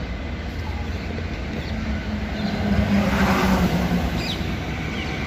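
A motor vehicle's engine passing by: a hum that swells to a peak about three seconds in and then eases, over a steady low rumble.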